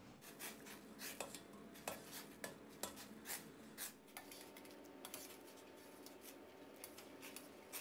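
Faint scattered clinks and taps of a wire-mesh strainer against a steel pot while blanched pork slices are scooped out of boiling water, mostly in the first half.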